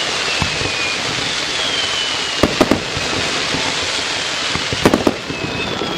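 Fireworks display: shells bursting with sharp bangs, a pair about two and a half seconds in and another cluster near five seconds, over a steady noisy hiss, with thin whistles sliding slightly down in pitch.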